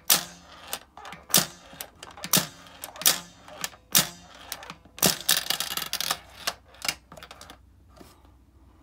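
A Showa-era Yonezawa Kamen Rider toy pachinko board being played by hand: a string of sharp plastic-and-metal clacks every half second to a second as the plunger and lever are worked and small metal balls strike the pins. About five seconds in the balls rattle in a denser run, then the clicks thin out and fade near the end.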